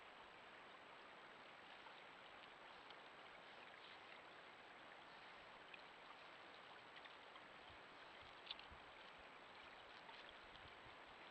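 Near silence: the faint steady hiss of a trail camera's microphone with a constant high electronic whine, and a couple of small clicks, the sharpest about three quarters of the way in.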